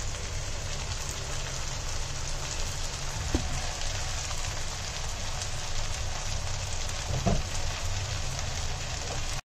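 Chopped onions, tomato pieces and curry leaves sizzling steadily in oil in an uncovered nonstick pan, the tomatoes softening on a low flame. The sizzle cuts off abruptly near the end.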